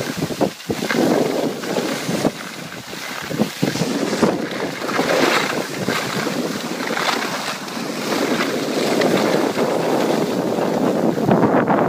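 Wind buffeting the microphone of a skier heading downhill, with skis hissing and scraping over packed snow. The noise swells and dips unevenly.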